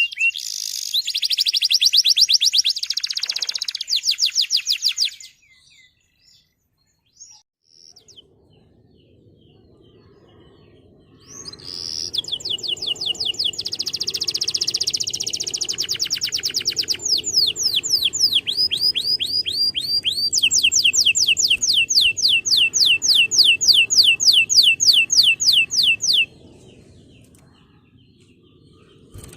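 Male domestic canary singing in fast trills of repeated high notes. One phrase of about five seconds comes first, then a pause of several seconds with a few faint chirps, then a long run of trills of about fifteen seconds that stops abruptly.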